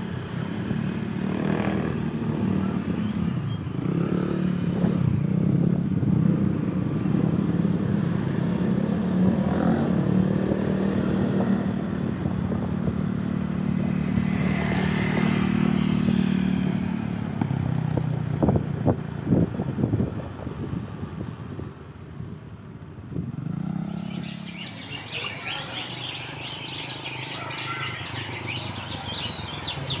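Motorcycle engine running steadily while riding along a road, easing off after about 17 seconds. Birds chirp over the quieter engine in the last several seconds.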